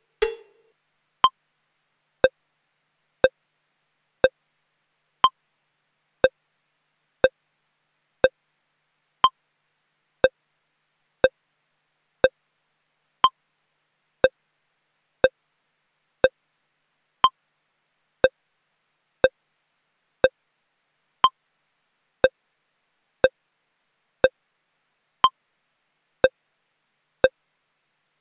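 Short electronic pips on a broadcast holding feed, one each second, evenly spaced; now and then a pip sounds higher than the rest.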